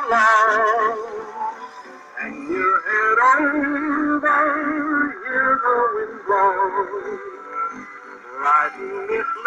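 78 rpm shellac record playing on a wind-up acoustic phonograph: an old song with a male voice and a wavering, vibrato melody line.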